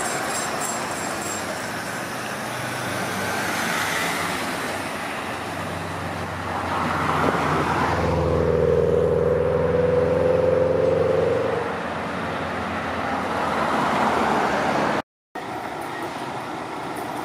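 Alstom Citadis Dualis tram-train running past on steel rails, with a steady electric hum from its drive, loudest for about four seconds in the middle, over road traffic noise. Near the end the sound drops out for a moment, then comes back as steady road traffic.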